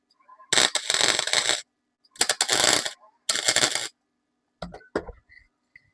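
Welder laying three short tack welds on a sheet-metal brace, each a crackling burst of about a second, then a few light clicks and knocks near the end.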